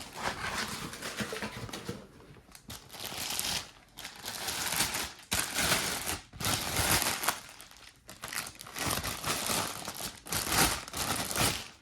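Packaging crinkling and rustling in repeated bursts as a rifle upper receiver is unwrapped from its box.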